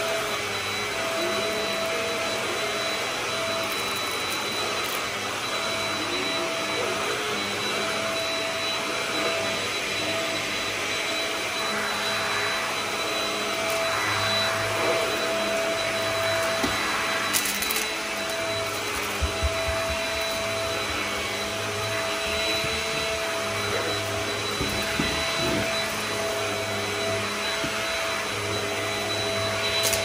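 Shark DuoClean cordless stick vacuum running steadily, its motor whining as the floor head is pushed over carpet. A few light knocks come a little past halfway.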